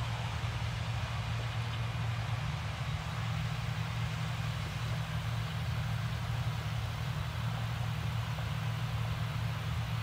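A John Deere combine harvester heard from across the field, its engine and threshing machinery running as a steady low drone with no changes.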